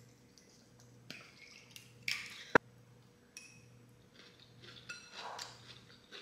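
Faint clinks and scrapes of kitchen utensils against dishes, with one sharp clink about two and a half seconds in.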